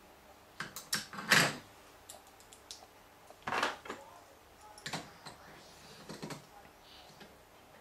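Small plastic Lego pieces clicking and clattering as they are handled and pulled apart on a tabletop: a handful of separate clicks, the loudest about a second and a half in.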